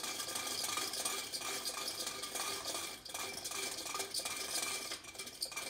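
Wooden clockwork of a Clayton Boyer-designed mechanical calendar and orrery running, a steady stream of small clicks and clatter from its wooden gears and levers as the weight drives the mechanism through its daily cycle.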